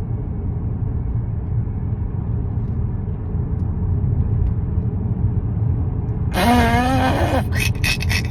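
Steady low rumble of a car driving, heard inside the cabin. About six seconds in, a wavering pitched sound cuts in for about a second, then quick regular beats begin near the end.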